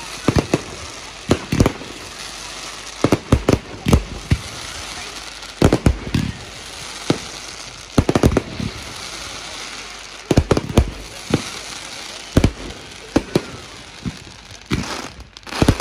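Fireworks display: shells bursting in sharp bangs at irregular intervals, sometimes several in quick succession, over a steady background hiss.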